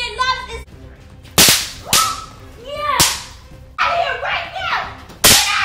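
Four sharp whip-like cracks of a spanking, the first two close together, each followed by a boy's short yelp or cry.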